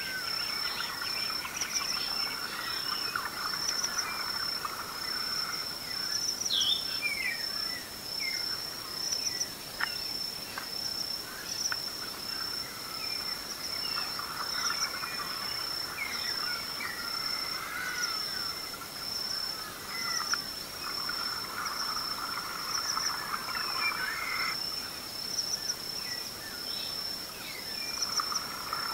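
Dawn chorus in the African bush: a steady high-pitched insect trill with regular pulses, many birds calling in short rising and falling notes, and a lower chorus that swells and drops every few seconds.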